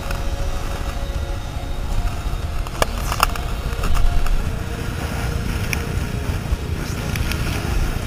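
Gale-force wind buffeting the microphone as a deep, steady rumble, with waves slapping and spraying against a sea kayak's bow. A few sharp slaps come about three seconds in, and the noise swells briefly about four seconds in.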